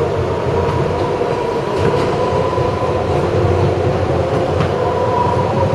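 R160 subway train running on elevated track, heard from inside the cab: a steady rumble of wheels on rail with a steady high whine over it.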